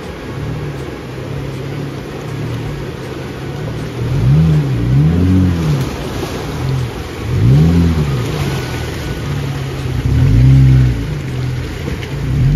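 Jeep Wrangler JL's engine revving up and easing off three times as it crawls through a creek, with water splashing around the tyres.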